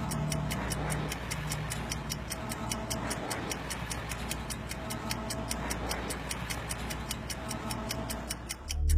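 Fast, even ticking, as of a timer counting down, over a low droning film score; a loud low swell of music comes in right at the end.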